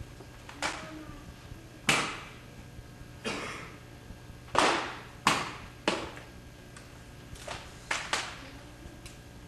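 Drill rifles being tossed and caught in precision rifle drill: a series of about ten sharp smacks of hands catching the rifles, spaced unevenly, the loudest about two seconds and four and a half seconds in. A steady low hum runs underneath.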